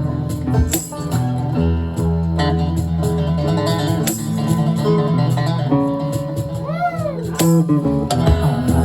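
Live band music: an instrumental passage with guitar to the fore over steady low notes, one note bending up and back down about seven seconds in.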